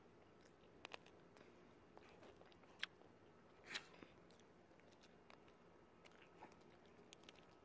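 A dog biting and chewing a stuffed plush toy: a handful of faint, scattered clicks and crunches, the sharpest about three seconds in.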